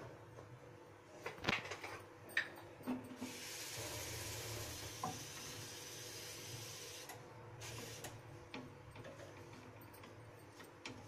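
A wooden spatula scraping and stirring wheat flour that is roasting in ghee in a nonstick kadhai. A few knocks and scrapes come early on, then a steady rasping hiss lasts about four seconds and cuts off, followed by lighter scrapes.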